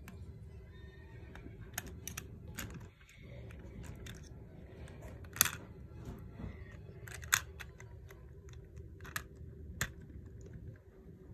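Short, sharp clicks of Lego plastic being handled as minifigures are set into a Lego train wagon, about seven spread through, the loudest about halfway.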